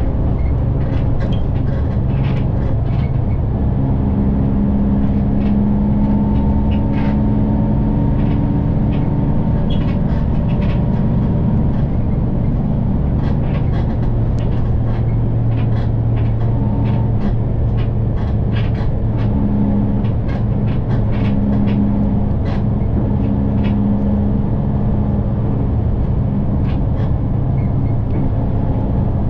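City bus running along the road, heard from inside the passenger cabin: a steady engine and road rumble with a drone that swells and fades, and frequent small rattles and clicks from the bus body.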